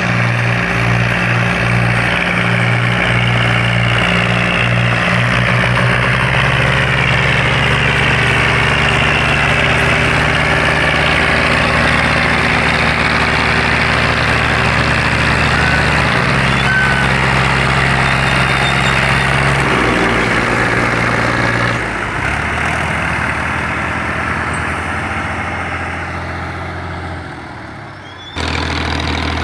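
Diesel farm tractor engine running hard under a heavy load while pulling a loaded sugarcane trolley. Its pitch shifts a couple of times, and the sound fades over the last several seconds before turning loud again right at the end.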